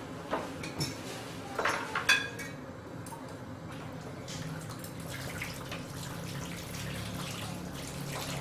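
Several sharp metal clinks and knocks of kitchen utensils against a cooking pot during the first two seconds or so, the loudest about two seconds in. A steady low hum follows.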